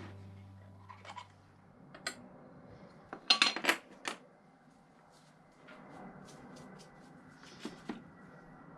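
A clatter of small hard objects being handled and set down, clinking and clicking, loudest in a quick burst about three seconds in, with a few lighter taps later. Instrumental music fades out at the start.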